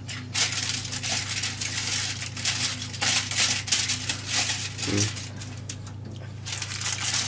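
Aluminium foil crinkling as hands press and crimp it tightly closed, in two spells with a short lull about five seconds in, over a low steady hum.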